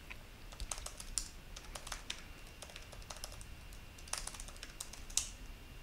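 Typing on a computer keyboard: a run of light, irregular keystrokes.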